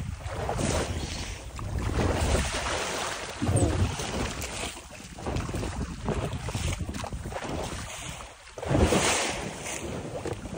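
Wind gusting over the microphone on a small boat under way at sea, with water and boat noise beneath it. The noise swells and eases unevenly, with a strong gust near the end.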